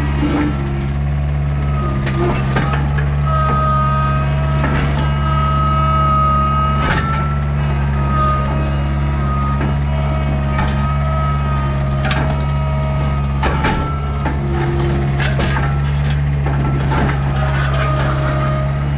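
Skid steer's diesel engine running steadily, with a higher-pitched whine that comes and goes for a second or two at a time. Sharp metallic clanks and knocks land about a dozen times as a disc harrow section is picked up and moved.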